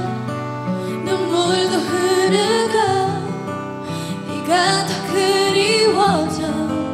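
A woman singing a K-pop song live over an instrumental backing track, her voice gliding between held notes.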